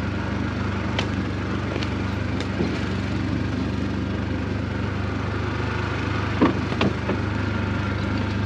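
A buggy's engine idling steadily, with a few sharp clicks and knocks over it, the loudest a little after six seconds in.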